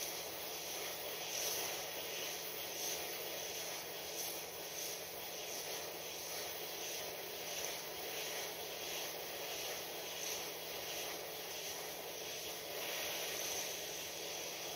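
Hot-air rework station nozzle blowing a steady hiss of hot air onto a phone circuit board, melting the solder to lift off a screen connector.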